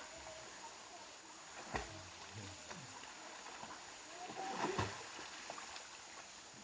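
River water flowing steadily, with two sharp splashes or knocks, one a couple of seconds in and one near the end.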